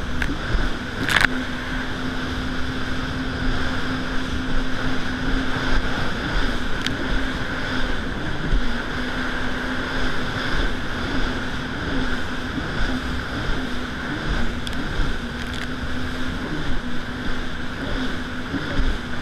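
Yamaha VX110 jet ski's four-stroke engine running at a steady pitch while under way, with water rushing against the hull and wind on the microphone. The pitch wobbles briefly a couple of times, and there is one sharp knock about a second in.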